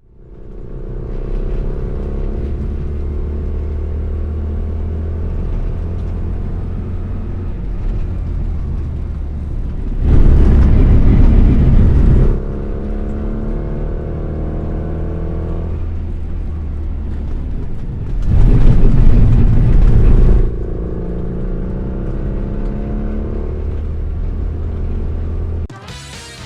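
A Rover Mini 1.3i car driving: steady engine and road rumble with slowly rising and falling engine tones. Twice, about ten and eighteen seconds in, it is broken by a loud rough rush of noise lasting about two seconds. The sound drops away just before the end.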